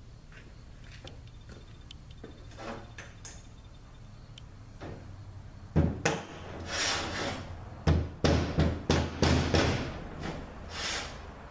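Transmission pump parts being handled and fitted on a workbench: a few light clicks, then from about six seconds a string of loud knocks and clacks, about three a second from about eight seconds in.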